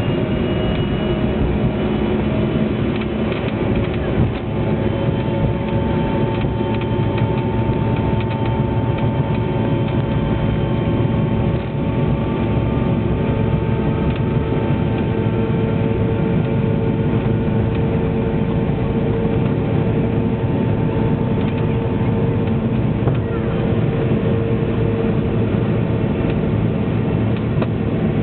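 Jet airliner engines at takeoff thrust, heard inside the passenger cabin during the takeoff roll and initial climb. It is a loud, steady rumble with held whining engine tones over it.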